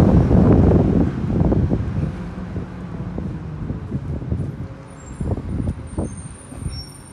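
Low rumble of passing road traffic fading away, with wind on the microphone and a few scattered knocks.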